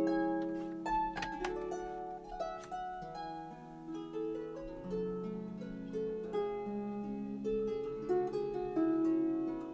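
Background music of gently plucked strings, harp-like, playing a melody of short held notes.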